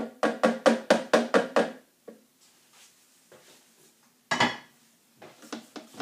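Rapid run of clattering knocks, about six a second, as the lid of a Thermomix TM31 is worked off its mixing bowl. Then one louder knock about four seconds in, and a few lighter knocks near the end as the steel bowl is taken by its handle, over a faint steady hum.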